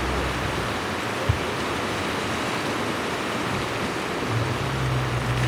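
Steady wash of sea surf against lava rocks, with a single knock about a second in and a low hum joining about four seconds in.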